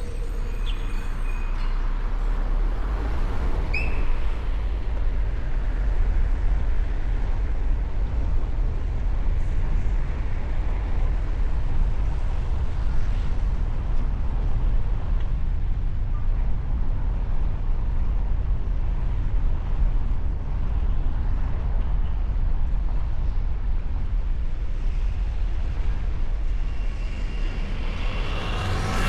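City traffic heard from a moving vehicle: a steady low rumble of engine and road noise, with a brief high chirp about four seconds in.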